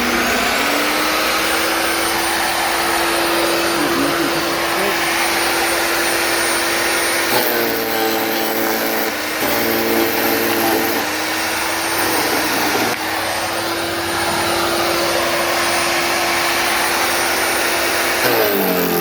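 WEN portable electric wood chipper-shredder's motor running with a steady whine, winding up to full speed in the first second. Its pitch drops twice between about seven and eleven seconds in, and again near the end, as it bogs down under load shredding sticks fed into it.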